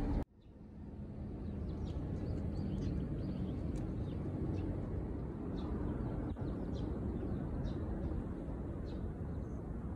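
Steady low outdoor background rumble with faint, short bird chirps scattered through it; the sound drops out briefly just after the start and fades back in.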